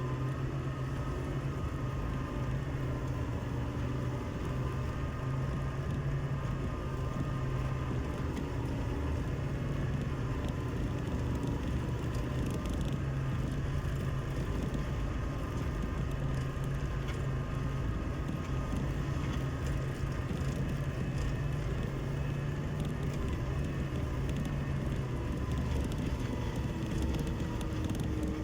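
Compact loader's engine running steadily, a constant drone with no change in pitch.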